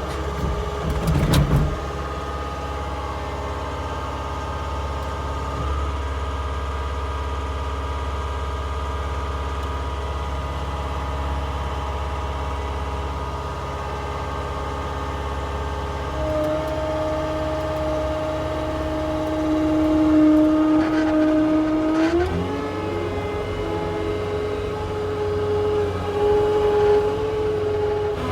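Diesel engine of a CAT skid steer running steadily, with a short clatter about a second in. A whine comes in past the middle and rises to a higher steady pitch a few seconds before the end.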